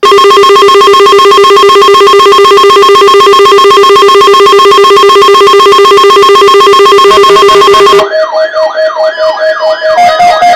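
Weather radio receiver's electronic alarm sounding at full volume, set off by the weekly test of the warning alarm tone. It gives a steady, buzzy tone pulsing rapidly for about eight seconds, then switches to a warbling pattern of quick, repeated rising sweeps.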